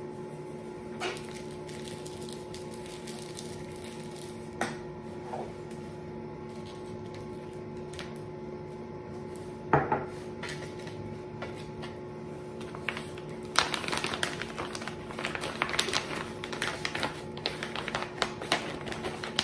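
Kitchen handling sounds over a steady hum: a few single knocks, then from about 14 s on a busy stretch of clattering and rustling.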